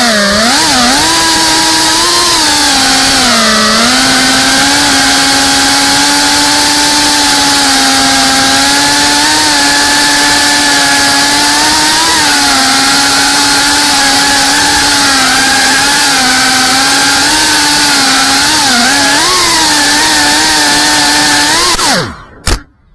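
GEPRC Cinelog35 FPV drone's motors and propellers whining loudly, as picked up by its onboard camera, the pitch rising and falling a little with the throttle. Near the end the whine drops steeply in pitch and cuts off, followed by a few short knocks.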